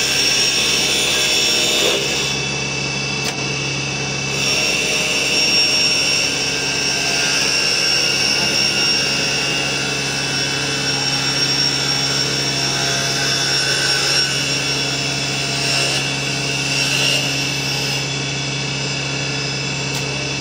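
Automatic wood copy lathe running, its back knife shaving a spinning wooden chisel-handle blank. The machine noise is steady, with several held tones over the scraping of the cut.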